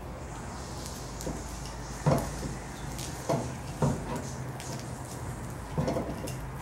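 Four or five short, scattered clunks of woodworking clamps being handled and set on a glued-up plywood panel, over a steady low hum.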